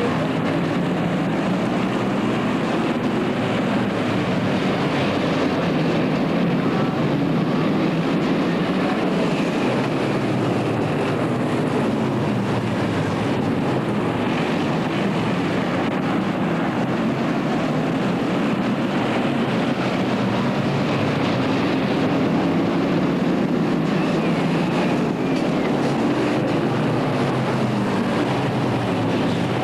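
A pack of stock race cars running at speed around a short oval track, their engines making a loud, continuous drone that swells and fades in pitch as the cars come past and move away.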